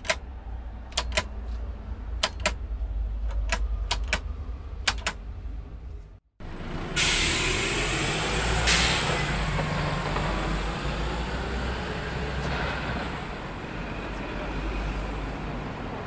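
City ambience recordings. First a low rumble with pairs of sharp clicks about once a second. It cuts off, then a loud hiss leads into steady road-traffic rumble.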